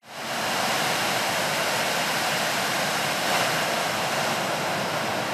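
Heavy rain falling and a flooded river's muddy water rushing past: a steady, dense noise of water that cuts in suddenly.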